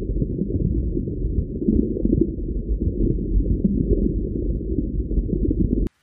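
Underwater aquarium ambience: a muffled low rumble with irregular soft pops and crackles and no high sounds at all. It cuts off abruptly near the end.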